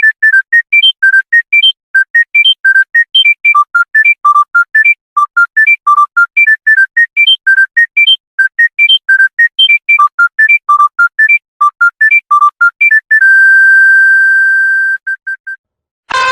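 Electronic phone ringtone: a fast, repeating melody of short high synth beeps. About 13 seconds in it ends on one long held tone followed by a few short beeps.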